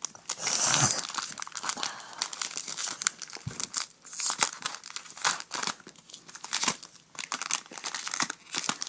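Foil Pokémon booster pack wrapper crinkling and tearing as it is opened by hand: a busy, irregular run of crackles.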